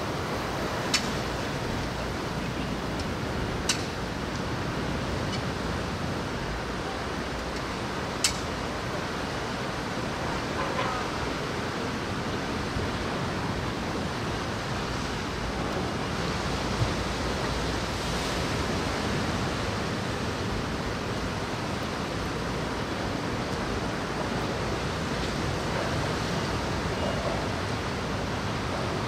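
Steady rushing of wind and rain, with a few sharp ticks now and then.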